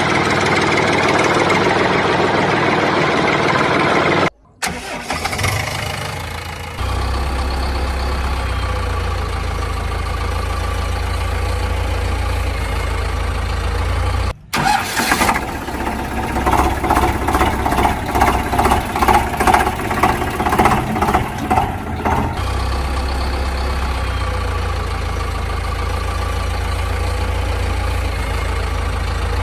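Vehicle engine sound: a low, steady running hum that breaks off twice, with a stretch of quick pulses, about two a second, midway through.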